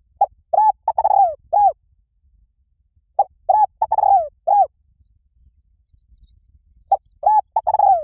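Spotted dove cooing: its short phrase of four or five coos, the last ones drawn out and falling, repeated about every three seconds, two full phrases and the start of a third.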